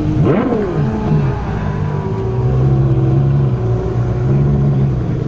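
A Ferrari sports car engine, a sharp rev that rises and falls in pitch about half a second in, then running at steady revs.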